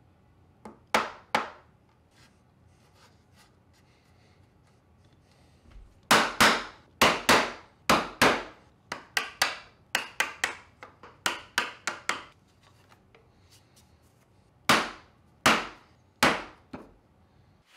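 Mallet striking a wooden-handled chisel held upright in an alder board, chopping out dovetail waste. Two sharp knocks come about a second in, then a steady run of strikes at about two a second, and three more knocks near the end.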